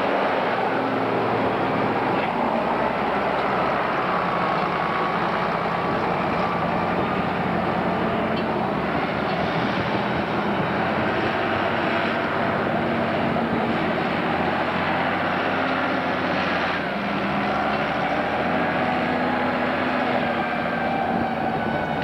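Two Lamborghini tractor diesel engines, a Formula 115 pulling a Racing 165 that draws a seven-furrow plough, running steadily under ploughing load. The engine note wavers gently in pitch.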